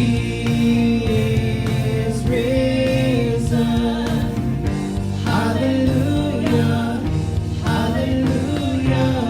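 Worship song: sung vocals over instrumental backing, with long held notes.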